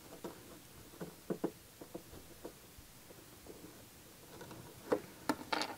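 Seam ripper cutting a slit through felt fabric between buttonhole stitches: faint, irregular scratchy snips and small clicks, a few sharper clicks near the end.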